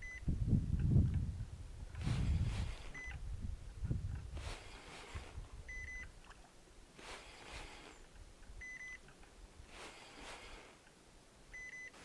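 A short, high electronic beep repeats about every three seconds, five times in all. Faint noisy swishes fall between the beeps, and low rumbles come in the first few seconds.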